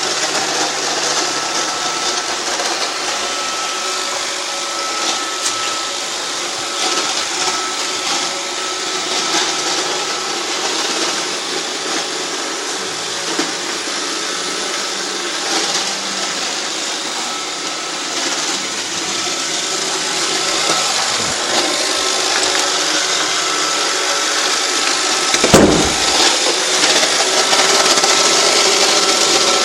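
iRobot Roomba 560 robot vacuum running, a steady whirring with a faint high hum; late on there is a single knock.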